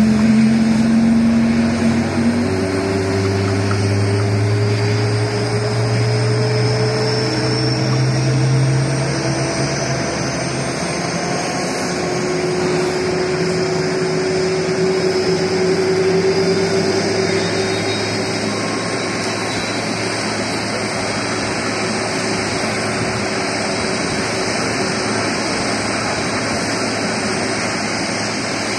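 Boeing 767-300's turbofan engine starting: a whine that slowly climbs in pitch as the engine spools up, then settles into a steady hum over a constant rush of jet noise.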